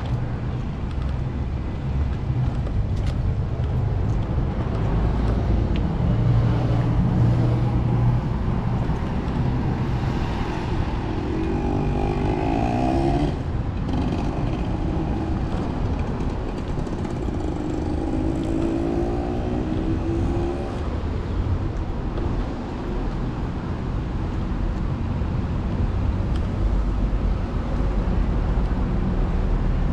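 Road traffic: a steady rumble of cars passing on a busy street, with two louder vehicles going by around the middle.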